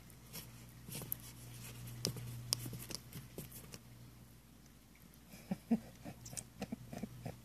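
Bearded dragon scratching at and scrabbling over carpet: scattered soft scratches and clicks, with a quicker run of them near the end.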